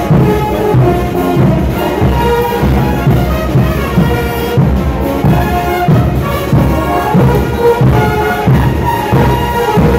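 Marching brass band of sousaphones, trumpets and trombones playing a tune with a steady beat.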